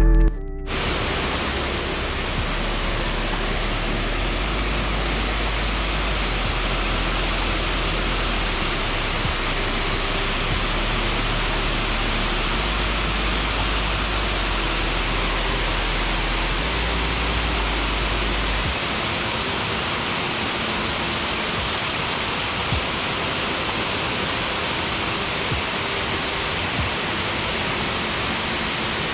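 Waterfall pouring steadily, a dense, even rush of falling water. Faint low tones sit underneath for the first two-thirds or so, then drop away.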